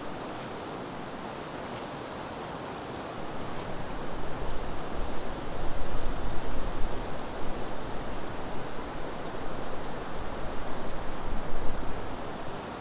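Steady rush of flowing river water. From about three seconds in, an uneven low rumble of buffeting on the microphone comes and goes over it, then drops away near the end.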